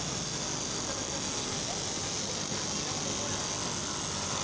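Straight-knife fabric cutting machine running steadily, its electric motor driving the upright reciprocating blade through a thick stack of garment fabric layers: a constant hum with a high hiss.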